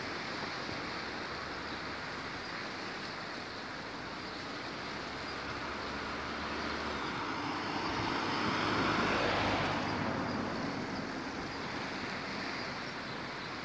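Steady road traffic noise, with one vehicle passing that swells and fades about eight to ten seconds in.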